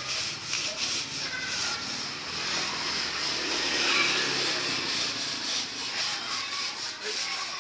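Steady rasping scrubbing of a tarpaulin being worked over by hand on a concrete floor, with faint voices.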